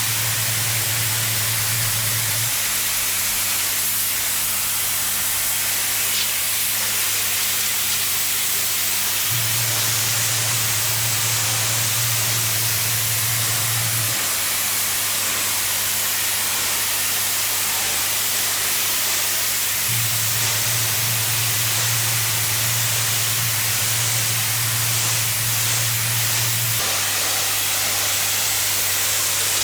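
Pressure washer jet spraying water onto block paving, a steady loud hiss. A low hum underneath steps up and down in level every few seconds.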